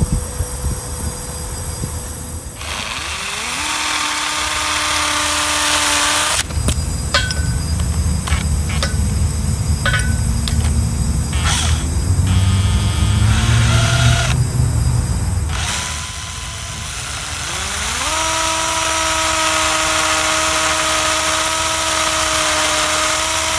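Makita cordless drill on its hammer setting, drilling small pilot holes through a steel bollard's base plate into the pavement to mark the bolt centres. It runs in three bursts: spinning up to a steady whine about three seconds in, a longer stretch with a heavier rumble and knocking in the middle, and another steady whine from near the end.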